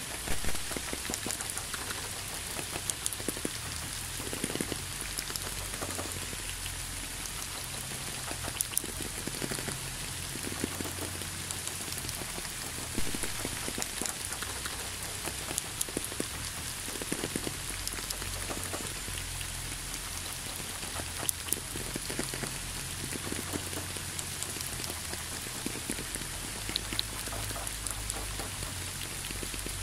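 Steady rain falling, an even hiss with many separate drops ticking close by throughout.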